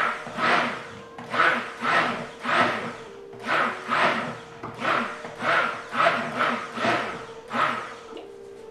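Stick blender mixing cold-process soap batter in a plastic bowl, a churning whoosh in regular pulses about twice a second, stopping about eight seconds in.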